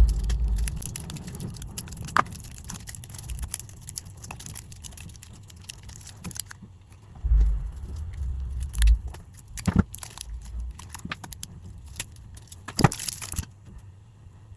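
Close-up handling of small parts: scattered clicks, taps and light rattles, with a few low bumps near the start and again about seven to nine seconds in.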